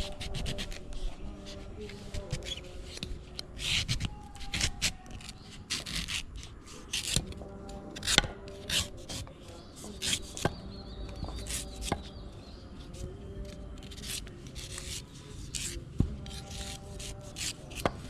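A knife chopping into the husk of a king coconut: a long run of sharp strikes at uneven intervals, some much louder than the rest.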